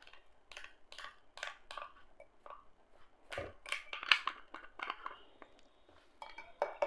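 Metal spoon scooping milk powder out of a crinkly sachet and tipping it into a glass: a quiet string of short, irregular crackling scrapes, busiest around the middle.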